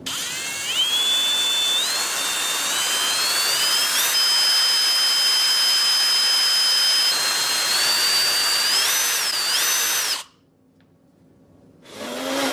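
Electric drill running and boring a hole into a smartphone to make a headphone jack. Its whine climbs in steps for the first few seconds, holds steady, then wavers as the load changes, and cuts off abruptly about ten seconds in.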